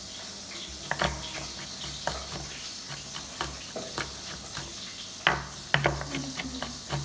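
Pork frying in hot oil in a pan, with a steady sizzle. Irregular sharp knocks and clatters of a utensil or kitchenware sound over it, about a dozen, clustered toward the middle and end.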